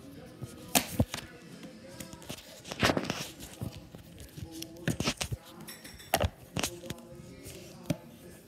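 Spoon clicking against a ceramic bowl several times while ramen is eaten, with a burst of slurping about three seconds in.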